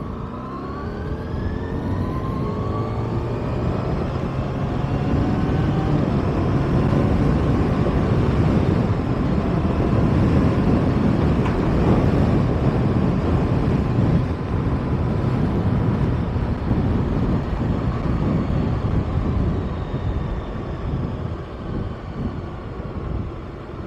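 Kawasaki ZX-6R sport bike's inline-four engine under way, rising in pitch as it accelerates over the first couple of seconds, then running on at speed under a steady rush of wind on the microphone.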